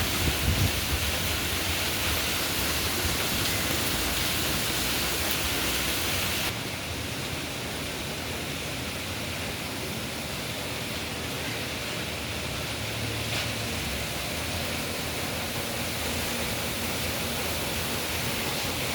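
Steady rain falling, a dense even hiss. About six and a half seconds in, the high part of the hiss drops off abruptly and the rain goes on a little softer.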